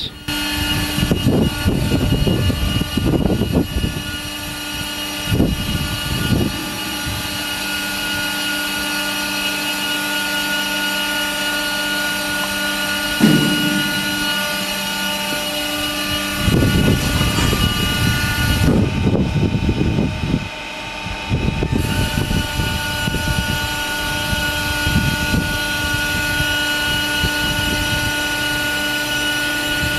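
AWS58 quarantine waste steriliser machinery running with a steady whine while its door mechanism unlocks and swings the door open at the end of the treatment cycle. Low rumbling surges come and go throughout.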